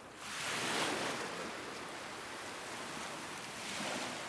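Small waves breaking and washing through knee- to waist-deep water at the beach: a surge of surf comes up sharply a moment in, eases to a steady wash, then swells again near the end.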